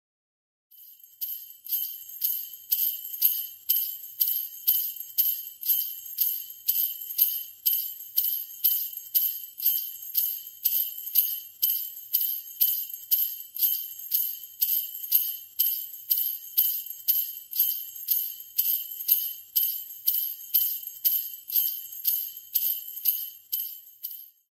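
Sleigh bells shaken in a steady rhythm, about two shakes a second, each a bright high jingle; they start about a second in and stop just before the end.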